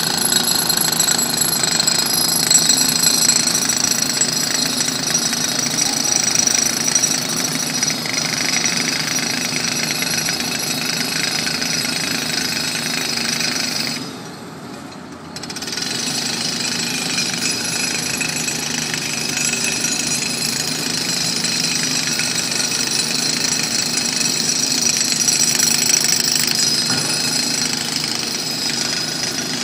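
Jackhammer breaking up the street surface at a roadworks site, hammering steadily, with a short lull about halfway through.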